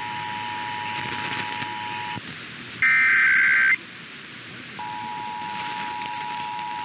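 Emergency Alert System two-tone attention signal, steady, with hiss behind it. It cuts off about two seconds in and is followed by a loud burst of about a second of SAME digital header warble. The two-tone signal starts again about five seconds in.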